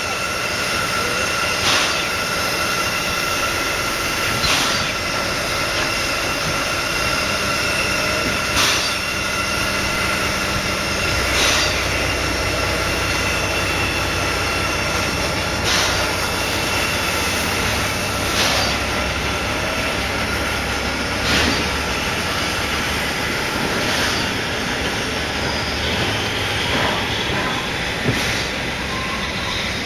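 A train hauled by the C11 171 steam locomotive running on the rails, with a steady high-pitched ringing or squeal and a sharp click every two to three seconds.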